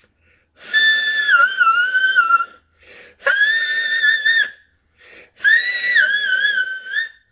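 A man singing whistle-register notes: three long, very high notes with short breaths between, each wavering in pitch.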